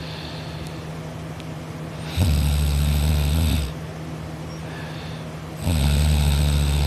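A sleeping person snoring: two loud snores, each about a second and a half long and a few seconds apart, over a steady low hum.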